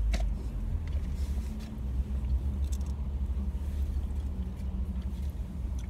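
Steady low rumble of an idling car, heard from inside the cabin, with a few faint clicks and rustles of food being handled.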